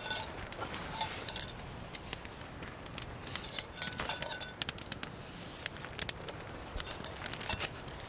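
Wood campfire crackling, with many sharp irregular pops and snaps.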